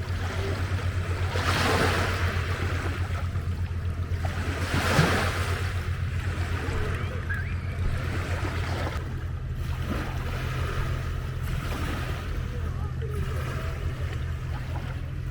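Small lake waves washing onto a beach, with the loudest washes about one and a half and five seconds in, over a steady low hum.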